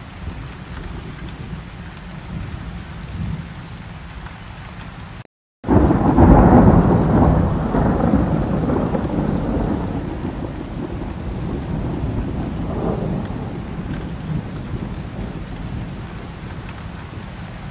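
Steady rain falling. About five seconds in, the sound drops out for a moment, then a long roll of thunder comes in loud and fades slowly while the rain goes on.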